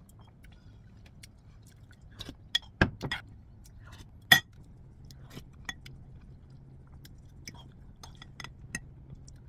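Metal spoon clinking and scraping against a porcelain bowl as it stirs soy milk: a scattering of light clinks, the sharpest about three and four seconds in.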